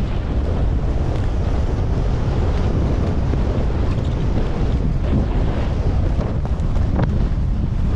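Wind buffeting the camera microphone of a skier moving downhill, mixed with the steady hiss of skis sliding over packed snow.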